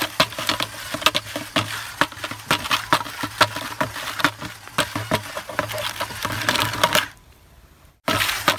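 Dense, irregular crackling and rustling of nylon trellis netting being handled over dry straw. About a second before the end it breaks off into near silence.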